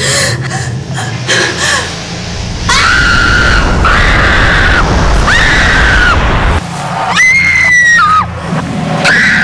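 A person screaming over and over: long, high-pitched screams about a second each, several dropping in pitch as they end. A low rumble runs beneath and cuts off about two-thirds of the way through.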